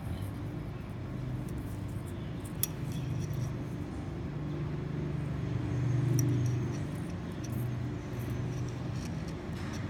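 Small metal clicks and light handling noise as fingers work a wire snap clip and bobber on fishing line, over a low steady rumble that swells about six seconds in.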